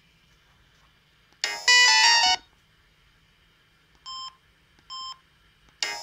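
Samsung SGH-C520 phone's Yamaha SMAF synth ringtone plays a short loud snippet about a second and a half in, then cuts off. Two short keypad beeps follow about a second apart, and another ringtone starts just before the end.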